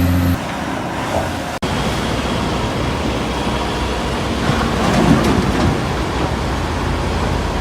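Heavy diesel quarry machinery (excavators and dump trucks) running, a low rumble with a rushing noise, cut off briefly once about a second and a half in.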